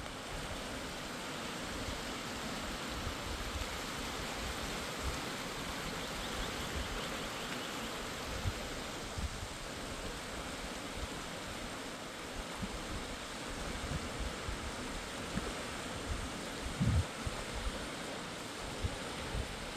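Rushing mountain river: a steady, even hiss of flowing water, with a few short low thumps, the loudest about three-quarters of the way through.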